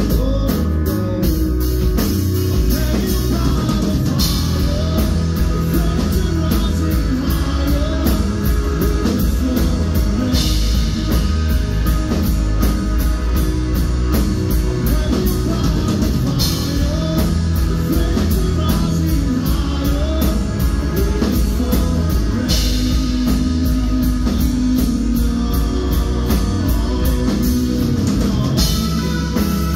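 Live rock band playing: a strummed jumbo acoustic guitar and a drum kit keeping a steady beat, with a man singing lead. A cymbal crash comes in about every six seconds.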